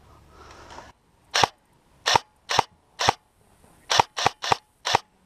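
Airsoft gun fired close by in single shots: eight sharp cracks at an uneven pace, the last four in quicker succession, after about a second of faint rustling.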